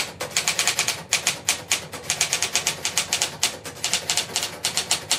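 Typewriter-style typing sound effect: rapid key clicks, about six a second, in runs with short pauses.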